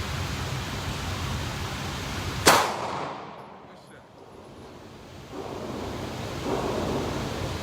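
A single gunshot about two and a half seconds in, sharp and much louder than the steady background, which drops away for a few seconds after it.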